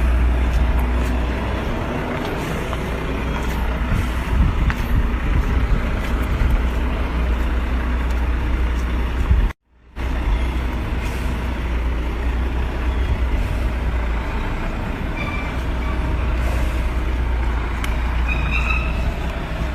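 Heavy truck engine running steadily, a deep rumble under a wash of outdoor noise; the sound cuts out for a moment about halfway through.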